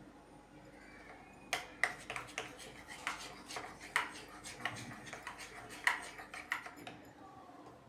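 Kitchen utensil clinking and tapping against a dish: about a dozen irregular sharp knocks over some five seconds, the loudest near the middle and a little before the end.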